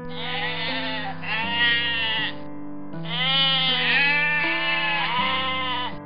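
Sheep bleating in long, wavering calls, several in a row, with a short pause about two and a half seconds in.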